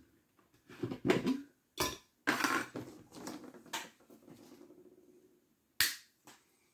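Plastic glow sticks dropped into a glass blender jar, clattering and rattling against the glass, with sharp cracks as glow sticks are bent to break the inner vial and activate them, one crack near the end.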